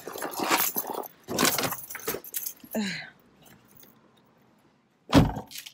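Keys jangling with handling clatter while getting into a car, then a car door shutting with a single heavy thump about five seconds in.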